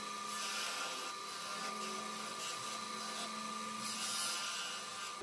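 Wood lathe running with a steady whine and hum, while a turning tool works the spinning wooden screwdriver handle, giving hissy swells that come and go several times.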